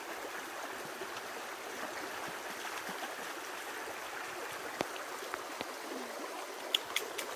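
Shallow forest creek flowing steadily over its bed, with a few faint clicks near the end.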